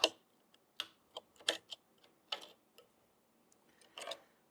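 Irregular sharp clicks and taps of a hand tool, such as a knife, working at a stuck joint of an old wooden sash window, with a short scrape about four seconds in.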